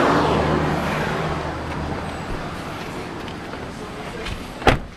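Traffic noise that swells at the start and fades away, then a single sharp bang of a car door being shut near the end.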